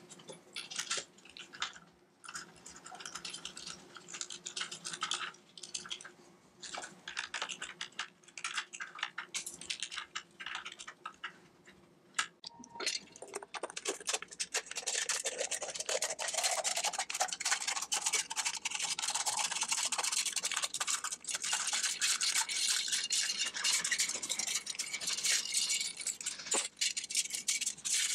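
Light clicks and rustles of small parts and wires being handled, then, from about halfway through, scissors cutting through a thin aluminium drink can in one dense, continuous stretch.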